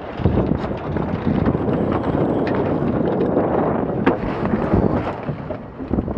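Wind buffeting the microphone on a sailing E-scow during a tack. A few sharp knocks come from the lines and deck fittings being worked, the clearest about four seconds in.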